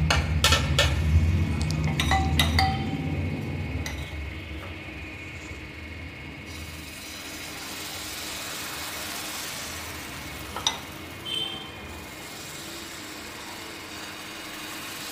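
Steel utensils clink a few times at first. Then a soft, steady sizzle rises as thin dosa batter is ladled onto the hot nonstick tawa, with one sharper clink about ten and a half seconds in.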